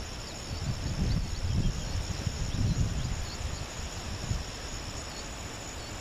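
Steady high-pitched insect chorus, with small chirps repeating through it and an uneven low rumble underneath.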